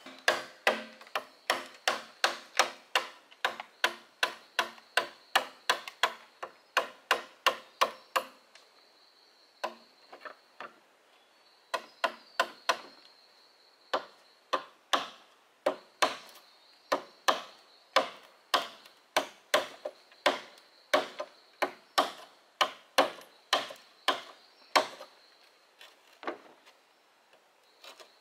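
Machete chopping into a green bamboo pole, quick regular strokes about two a second, with a short pause near the middle.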